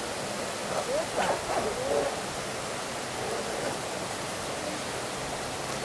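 Steady rushing noise, like running water, with a few short hoot-like calls gliding up and down about one to two seconds in.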